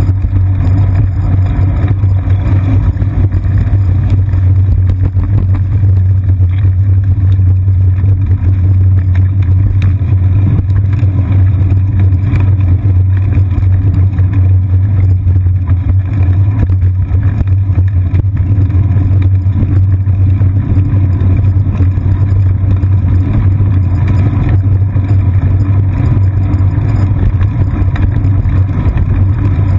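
Steady, loud low rumble of a bicycle in motion on a paved path, picked up through a seat-post-mounted GoPro Hero 2 camera.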